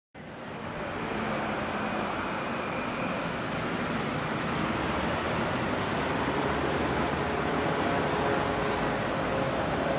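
Steady road-traffic noise, a continuous wash of passing cars that fades in over the first second.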